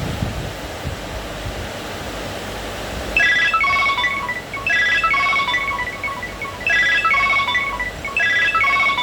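Nokia 7210 ringtone played through a Nokia 2760 phone's loudspeaker: an electronic melody of short, quick notes that starts about three seconds in and repeats its phrase every second and a half to two seconds, over a steady hiss.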